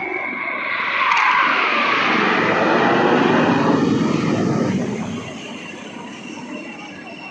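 Fixed-wing aircraft flying past. Its engine noise swells about a second in, with a falling pitch, holds loud for a few seconds, then fades away.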